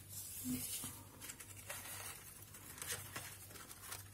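Faint rustling of satin ribbon and a cardstock box being handled while a bow is tied, over a faint steady low hum.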